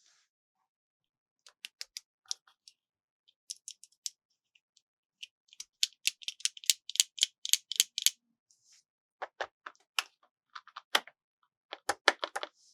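Fingertips and nails tapping and clicking on a hard plastic toy car, in scattered clusters of light taps with a fast run of rapid tapping in the middle.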